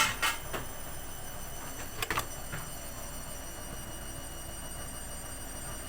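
Kitchen things being handled: a few light clicks and knocks in the first second, then a close pair about two seconds in, over a steady faint background whine.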